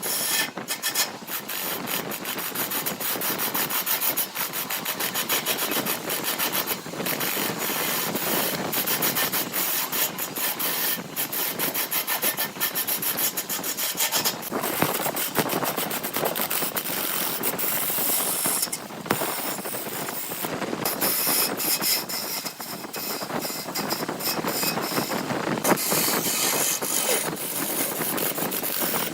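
A tool scraping and rasping against wood without a break, full of quick irregular clicks.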